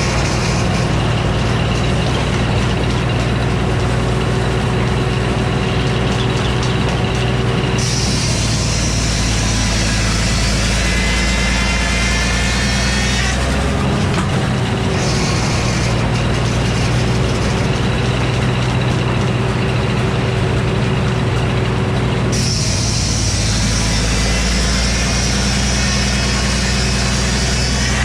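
Frick sawmill running steadily: its power unit and circular saw blade are cutting a poplar cant into boards. The sound changes several times as passes are made, with a rising whine in stretches between.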